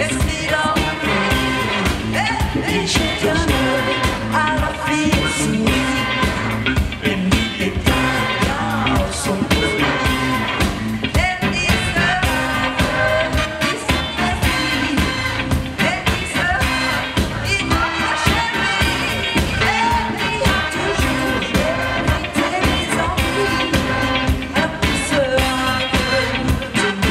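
Live rock band playing a pop-rock song with a woman singing lead: electric guitar, bass guitar, drum kit and keyboards over a steady beat, heard through the concert PA.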